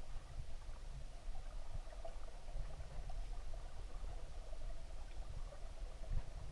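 Muffled underwater stream noise from a submerged camera: a steady low rumble of moving water with a faint crackle and a few light clicks.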